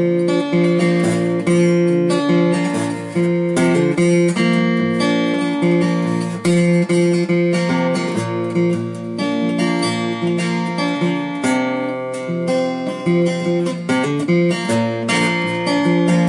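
Solo acoustic guitar playing a steady run of picked notes and chords, without singing.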